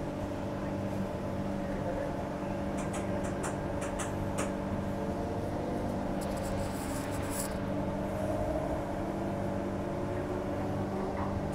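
Cabin sound of a Walkers Limited A-series electric multiple unit pulling out of a station: a steady electric traction hum with several held tones over the rumble of wheels on rail. A few short high clicks come about three to four seconds in, and a brief high hiss around six to seven seconds in.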